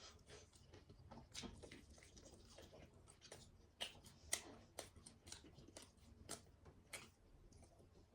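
Faint close-up eating sounds: chewing with irregular small wet mouth clicks, a few sharper clicks about halfway through.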